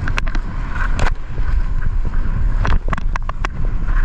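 Wind rushing over the microphone and water spraying as an inflatable tube is towed fast across a boat's wake. A heavy low rumble runs under it, broken by scattered sharp splashes and knocks, clustered near the start and again in the second half.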